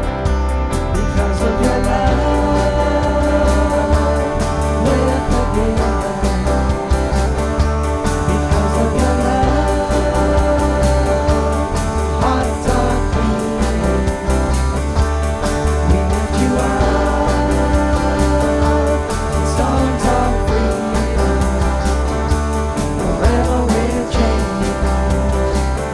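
Worship band playing a praise song: guitar and bass with a steady beat, a singer's voice over it.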